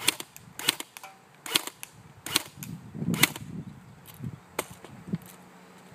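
JG AUG electric airsoft rifle firing single shots on semi-auto: about six sharp cracks, roughly one every second, the later ones fainter.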